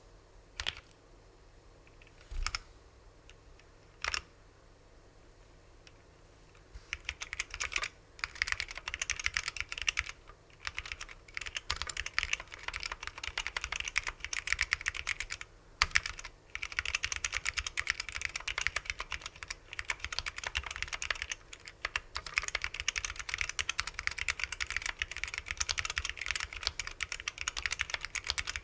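Custom 350 Mini gasket-mount keyboard with unlubricated vintage SKCL Yellow Alps switches. It starts with three single key presses, then fast continuous typing from about seven seconds in, broken by a few short pauses.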